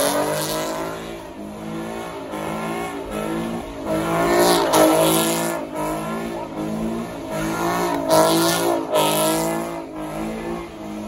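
Car engine revving hard while spinning its tyres in donuts, the revs climbing and dropping again and again. The engine swells loudest about halfway through and again near the end, with tyre screech in the mix.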